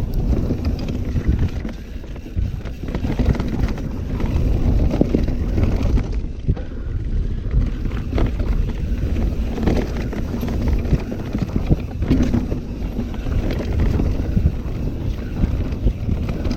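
Wind buffeting the microphone as a mountain bike descends a rough trail: a steady low rumble of tyres on dirt with irregular knocks and rattles from the bike over bumps.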